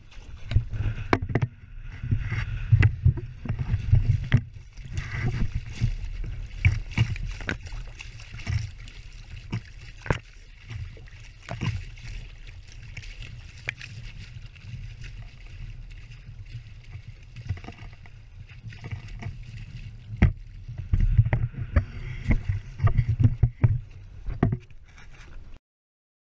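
Water slapping and splashing against a small sailboat's hull while under way, with wind buffeting the microphone as a heavy rumble and sharp knocks scattered throughout. It cuts off suddenly near the end.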